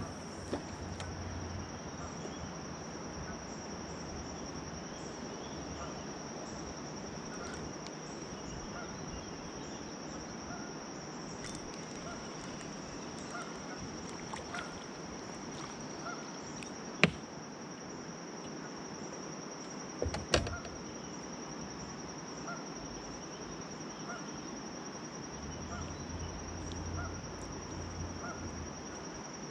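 A steady high insect drone with a faint chirp repeating about once a second. Two sharp knocks come about three seconds apart past the middle, the loudest sounds in it.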